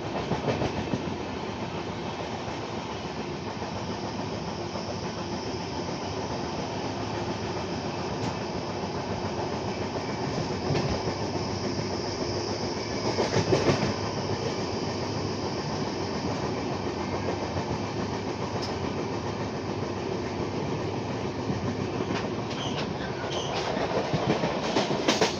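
Passenger train running at speed, heard from an open door of an LHB coach: a steady rumble of wheels on rail with clickety-clack, briefly louder about halfway through.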